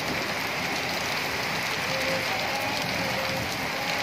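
Heavy rain pouring steadily onto a concrete rooftop and its surroundings: a dense, even hiss.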